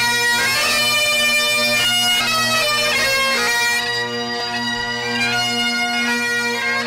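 Several Great Highland bagpipes playing together: a melody on the chanters over a steady, unbroken drone.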